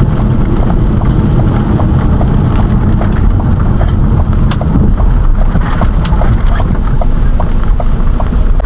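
Steady road and engine noise inside a moving vehicle, with a vehicle turn signal clicking evenly about two to three times a second.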